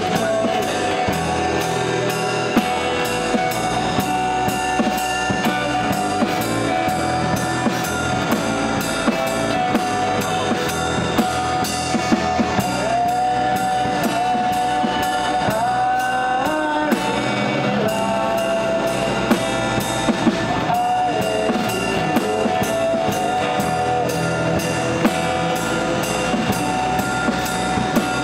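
Live acoustic band playing: two acoustic guitars over a drum kit played with sticks, at a steady beat.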